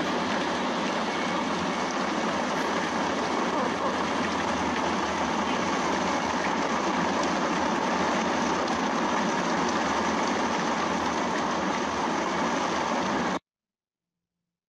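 Steady hiss of rain and wet-road tyre noise heard inside a moving car, even and unchanging. It cuts off abruptly near the end.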